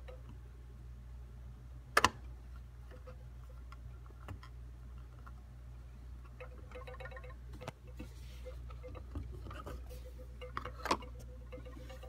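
A vinyl record being handled on a turntable: scattered clicks and knocks from fingers and the disc, with a sharp double click about two seconds in and another loud click near the end, over a steady low hum.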